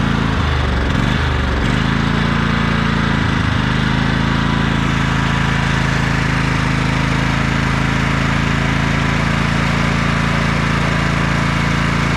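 20 hp Briggs & Stratton lawn tractor engine running with its oil drained. Its speed wavers for the first couple of seconds and dips briefly about three seconds in, then it runs steadily.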